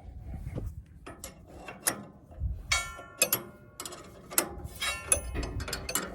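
Steel hand tools clinking and clanking together in irregular sharp metallic strikes that ring briefly, like wrenches being sorted through while hunting for a 3/4 inch one.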